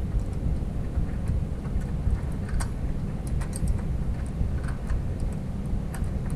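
Scattered light metallic clicks and taps as a 12 mm bolt is worked by hand, trying to thread it up into a nut on an under-panel mounting bracket, over a steady low rumble.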